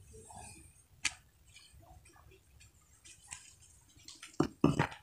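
Drinking from a plastic mug: faint sips and swallows, with a sharp click about a second in and two louder short thumps near the end.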